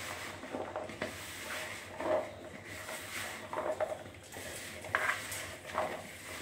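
A hand mixing and squeezing cauliflower florets coated in a wet chilli-powder and cornflour masala in a plastic bowl: irregular soft squelching and rustling as the coating is worked onto the florets before frying.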